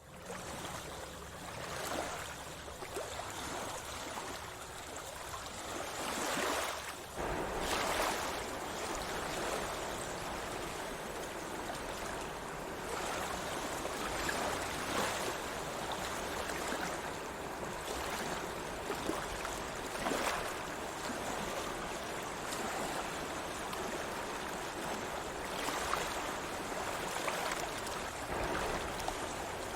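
Sea waves washing in, a steady rush of water that swells louder every few seconds.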